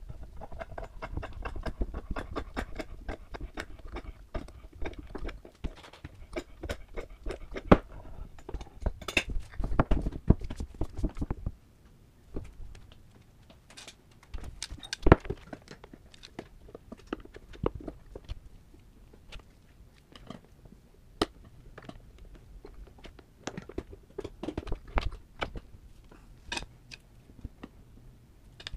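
Hand tools and rubber working a motorcycle front tire loose from its wheel rim: irregular clicks, knocks and scrapes, busy for the first dozen seconds and sparser after, with one sharp knock about fifteen seconds in.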